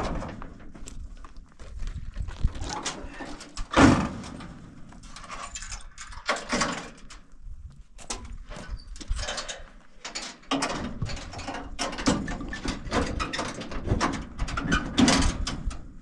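Knocks, scrapes and rustling as plastic water containers are handled in the metal bed of a pickup truck, with a sharp knock about four seconds in and footsteps on gravel.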